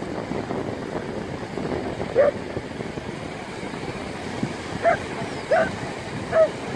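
A dog barking in short barks, one about two seconds in and then three in quick succession near the end, over a steady wash of wind and water.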